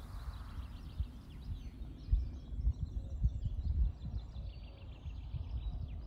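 Small birds singing: runs of short, high chirps that keep going, over irregular low gusts of wind on the microphone.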